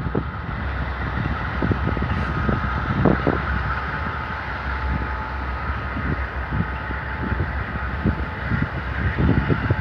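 Amtrak Superliner bilevel passenger cars rolling slowly past: a steady rumble of wheels on rails with irregular clacks and knocks as the wheels cross track joints, and a faint steady high whine.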